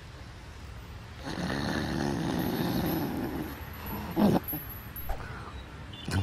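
A man snoring: one long snore of about two seconds, followed by a few short, sharp sounds.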